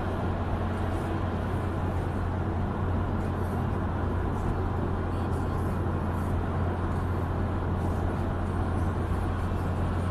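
Steady road and engine noise inside a car's cabin cruising on a highway, with a constant low hum underneath.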